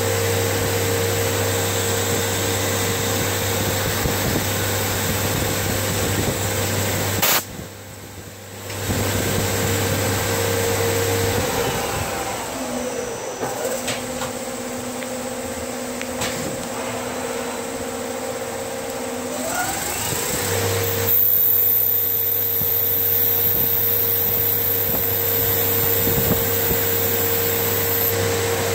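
Whacheon slant-bed CNC lathe running while turning a Delrin part: a steady machine hum over a hiss. About seven seconds in there is a sharp click and the sound drops away for about a second. In the middle the hum glides down to a lower pitch for several seconds, then glides back up, and a faint high whistle runs through the later part.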